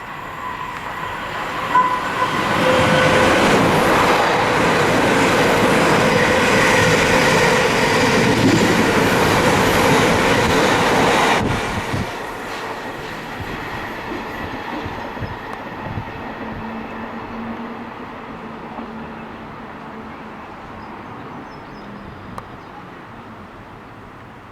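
Train passing through the station at speed, wheels clattering over the rails. The sound builds over the first two seconds, stays loud for about nine seconds, then drops off suddenly and a fainter rumble fades away.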